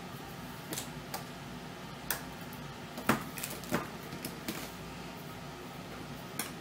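Scattered light clicks and taps of small parts being handled as a laptop LCD panel is worked loose from its metal side brackets, with a steady low hum underneath.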